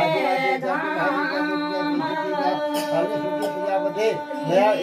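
Several voices singing together without instruments, holding long notes.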